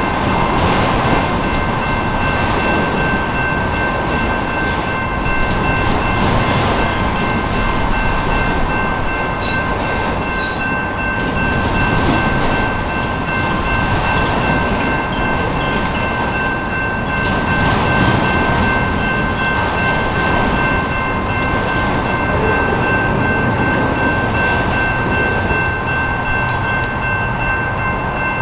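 Freight train of autorack cars rolling past: a steady rumble and rattle of the cars on the rails, with steady high ringing tones held over it.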